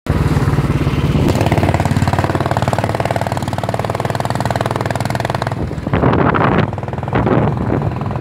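Royal Enfield Bullet 350's single-cylinder engine running steadily on the move, an even beat of exhaust pulses, while riding a rough gravel road. Two short louder rushes of noise come about six and seven seconds in.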